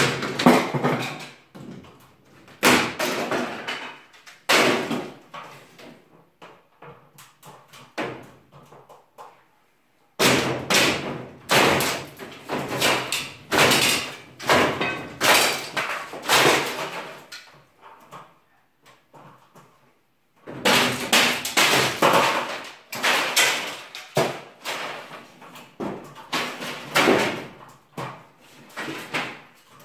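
Wooden ceiling boards and battens being pried and torn down, with irregular bursts of banging, cracking and clattering as pieces are knocked loose. The bursts come in clusters, with quieter gaps in the first third and again about two-thirds through.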